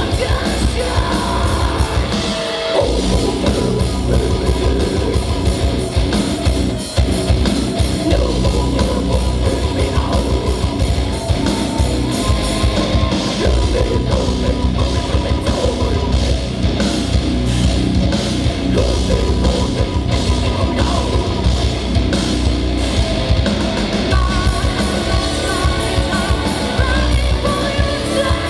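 A heavy metal band playing live: drum kit and guitars with sung and yelled vocals, loud and continuous, with a brief break in the bass and drums about two and a half seconds in.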